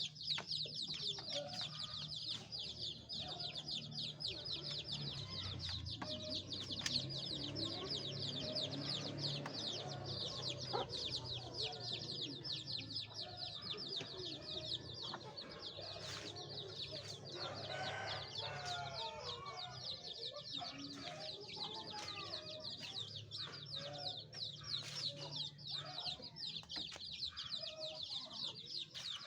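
A brood of chicks peeping continuously, many high-pitched cheeps overlapping, as they call for the hen. Lower clucking calls come and go underneath, busiest in the middle.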